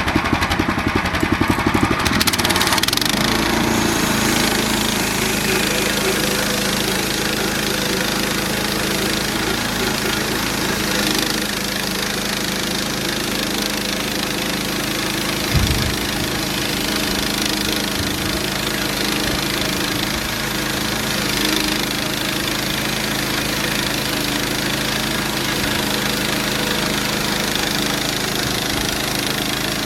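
Gasoline engine of a portable band sawmill running steadily under load while its band blade saws through very hard, dry mesquite. The engine note changes and settles about two and a half seconds in, and there is a single short thump about halfway through.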